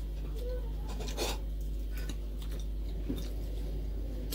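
A few faint clinks and scrapes of spoons on plates while people eat, over a steady low hum.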